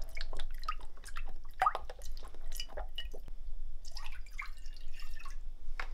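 Lime juice squirted from a plastic squeeze bottle, dripping and splashing into a ceramic bowl, then water poured in from a plastic jug: a rapid, uneven run of drips and splashes.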